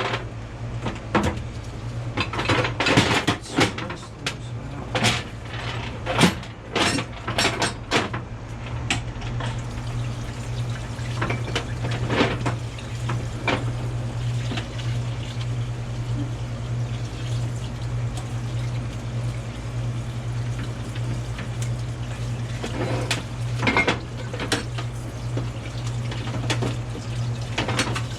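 Metal air compressor parts clinking and knocking as they are handled and cleaned, in clusters of sharp clinks over a steady low hum. The clinks are busiest in the first several seconds and come again briefly near the middle and near the end.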